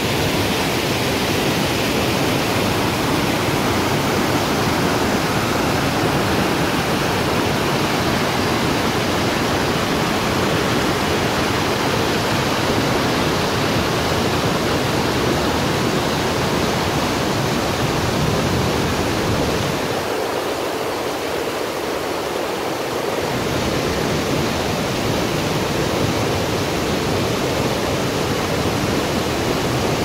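A waterfall rushing steadily: a dense, loud hiss of falling and churning water. The deep rumble drops away for a few seconds about twenty seconds in, then returns.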